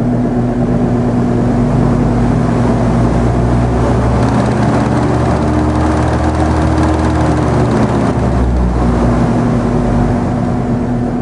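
Barn ventilation fans running with a loud, steady hum and rush of air, pulling the suction that swings the gravity ceiling inlet's lid open; a slightly higher tone joins in for a few seconds midway.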